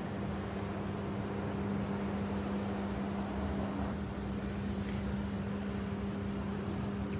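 A steady low mechanical hum, one constant droning tone with a fainter one above it, over a bed of noise.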